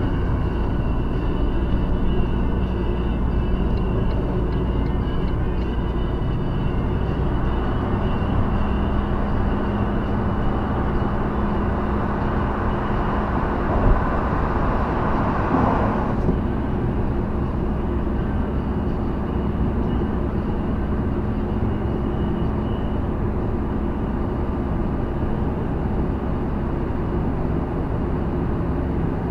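Steady engine and tyre noise heard from inside a moving car's cabin as it drives into and through a road tunnel, with a single brief thump about fourteen seconds in.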